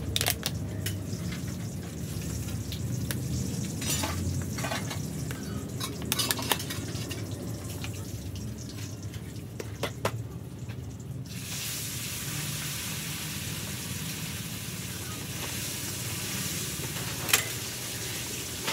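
Food-preparation handling sounds: a few scattered knocks and taps of a cleaver and a plastic bottle against a wooden chopping board, the sharpest near the end. They sit over a steady background hiss that becomes louder and brighter a little past halfway.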